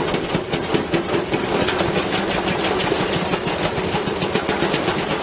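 Washing machine drum turning with a heavy stone inside, the stone knocking against the drum in a rapid, continuous series of bangs, several a second, over the machine's steady hum.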